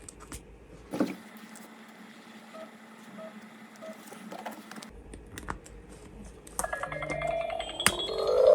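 Interactive unicorn toy's electronic sound effects: a click about a second in and a few short beeps, then near the end a chiming electronic tune starts and grows louder.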